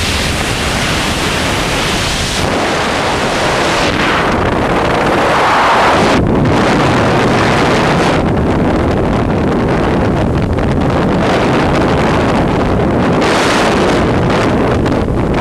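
Loud, steady rushing of wind buffeting the microphone, surging in strength every few seconds.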